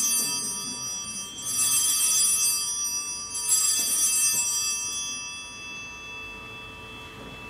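Altar bells rung three times, about two seconds apart, each shake a cluster of high ringing tones that fades slowly away: the signal for the elevation of the chalice at the consecration of a Catholic Mass.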